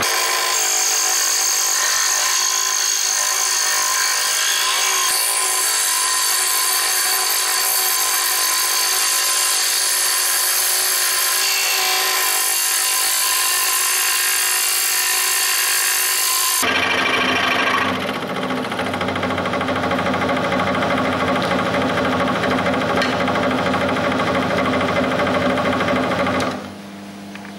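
Proxxon scroll saw running with its reciprocating blade cutting thin wood: a loud, steady machine sound with many even tones. It changes character about two-thirds of the way through and drops off sharply near the end.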